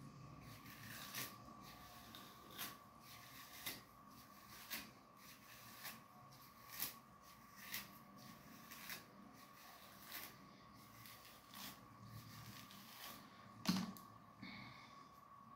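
Plastic comb raking through thick, coily natural hair in short scratchy strokes, about one a second, with a louder knock near the end. A faint steady whine runs underneath.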